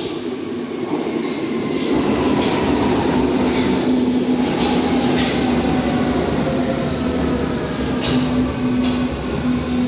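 Berlin U-Bahn large-profile train pulling into an underground station. It makes a steady hum with a slowly falling whine, and wheels click now and then over the rail joints.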